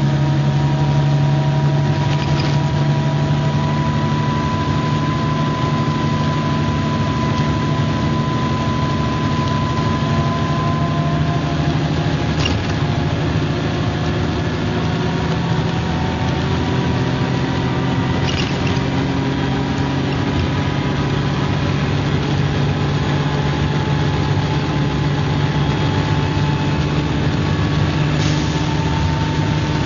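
MCW Metrobus double-decker bus engine running steadily under way, with a faint whine that climbs slightly over the first ten seconds or so, then fades. A few light clicks or rattles come through at intervals.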